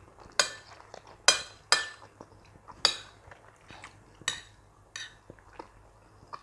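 Metal cutlery clinking and scraping against a plate while eating: a string of sharp, ringing clinks, about five of them louder, with fainter taps between.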